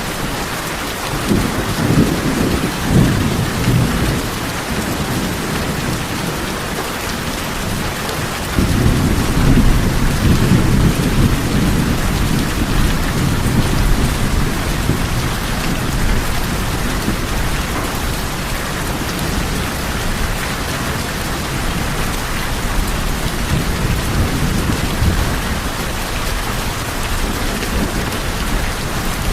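Steady rain falling on a tin roof, with rolling thunder underneath: a rumble about a second in, then a louder one that starts suddenly about eight seconds in and slowly fades.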